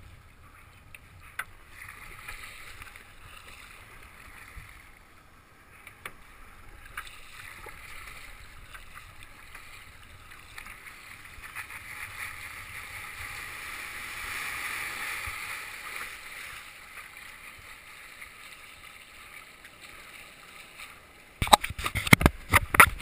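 Sea water washing and splashing against a kayak hull, heard from a camera mounted low on the deck, swelling to a louder rush for a few seconds past the middle as a wave passes. About a second and a half before the end comes a rapid run of loud knocks and scrapes right at the camera.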